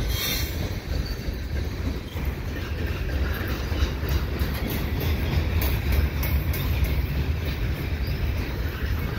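Freight cars of a CN mixed freight train rolling past, a steady low rumble of steel wheels on rail.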